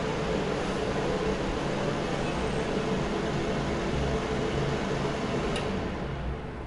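Mondial A-08 electric fan heater running: a steady rush of air with a low hum. About five and a half seconds in, a sharp click comes as its control knob is turned, and the running noise then drops somewhat.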